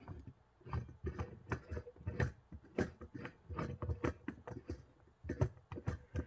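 Irregular light metallic clicks and taps, about two or three a second, from the small metal parts of an Ozark Trail 4-in-1 mini camp stove being handled.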